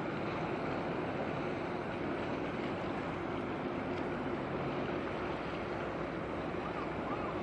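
Steady low drone of a passing ship's engine over wind and water noise.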